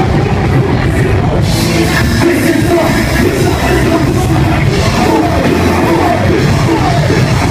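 Loud live concert music with heavy rock backing and shouted vocals over it.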